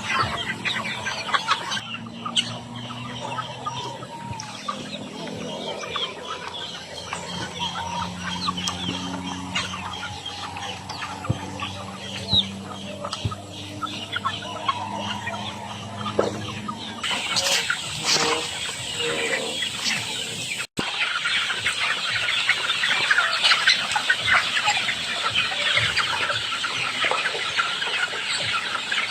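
A flock of free-range chickens clucking, a busy run of short calls with a low steady drone under them in the first half. After a brief break about two-thirds of the way in, the clucking gets denser and louder.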